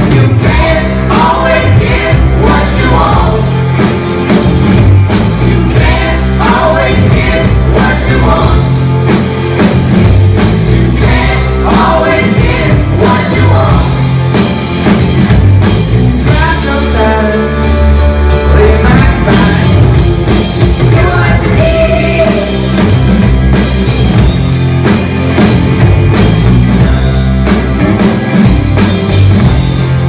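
Live rock band playing: electric guitars, bass, keyboards and drum kit, with sung vocal phrases that come and go every few seconds.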